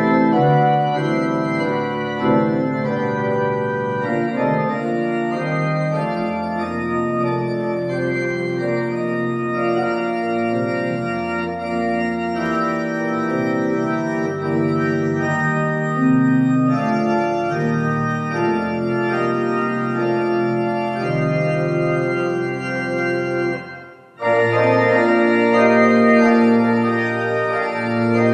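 Organ music: slow, sustained chords, with a short break about 24 seconds in before the playing resumes.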